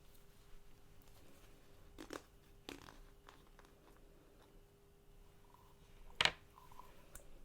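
Glue-based slime being squeezed and pulled, giving a few sharp sticky clicks and pops, the loudest about six seconds in.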